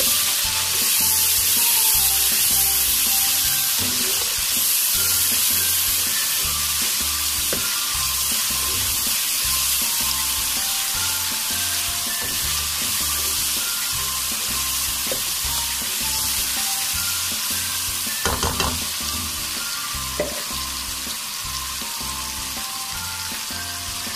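Diced tomatoes and marinade sizzling as they fry in hot oil, with the hiss fading slowly. A spoon stirs the pan, and a few sharp clinks sound against it near the end.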